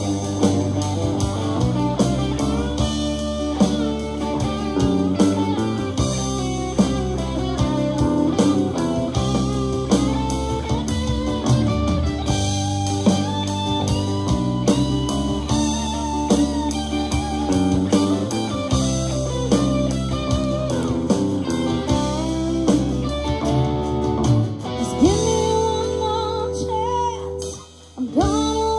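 A live band plays an instrumental stretch of a song: electric and acoustic guitars over drums and a steady bass line. Near the end the playing briefly drops away.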